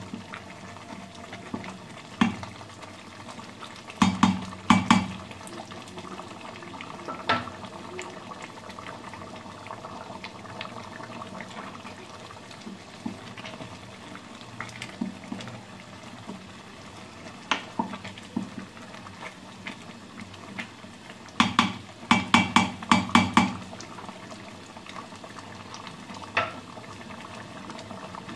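A spoon stirring soft, wet khichuri in an electric cooker pot over a steady simmer. Quick runs of knocks as the spoon strikes the pot come about four seconds in and again about two-thirds of the way through, with single taps between.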